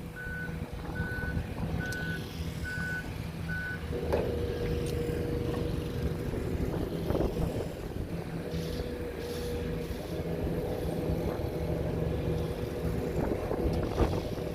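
Heavy construction machine's reversing alarm beeping five times, about one beep a second, over a diesel engine running. After about four seconds the beeping stops and a steady hum joins the engine noise.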